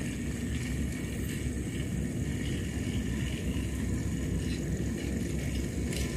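Battery-powered RailKing model train running along the track: a steady low rumble with a thin high hum over it, the motor working on a nearly flat battery.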